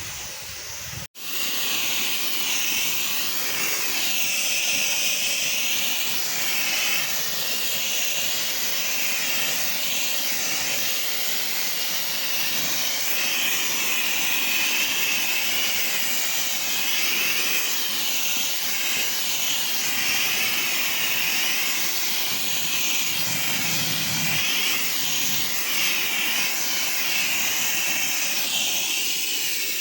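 Pressure washer spray hissing steadily, its pitch wavering as the jet moves over the surface. The sound starts after a short break about a second in.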